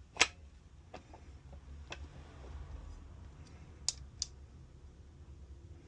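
Scattered sharp clicks and taps from engine parts and tools being handled during cylinder-head assembly. There is a loud click just after the start and two more close together about four seconds in, over a low steady hum.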